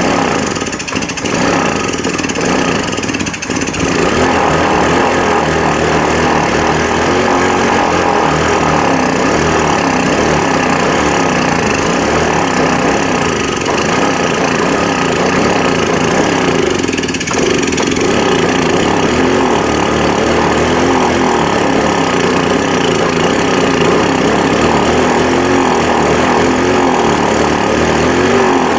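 GY6 150cc single-cylinder four-stroke scooter engine, revived after sitting for about two years and fed from an external fuel bottle that bypasses the tank, running with its speed wavering up and down.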